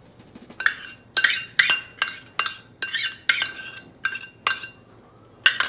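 A metal spoon scraping and tapping against a small stainless-steel bowl as thick coffee decoction is scraped out of it: a quick, uneven series of ringing metallic clinks, two or three a second.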